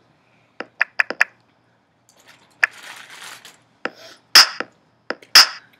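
A few light clicks and knocks, then sharp, loud hits at a steady one per second starting near the end, the beat that the dancing moves to.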